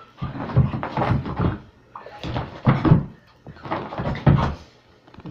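A large dog growling and grumbling in rough play, in three bursts of about a second each, with some knocks as it scuffles.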